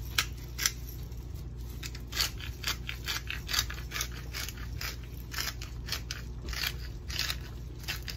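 Hand-twisted pepper grinder cracking black peppercorns: a steady run of short, gritty crunching clicks, a few per second.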